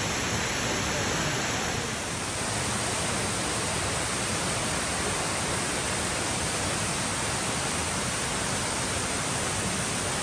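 Steady rushing of flowing water, like a fast stream or small waterfall, with no single event standing out.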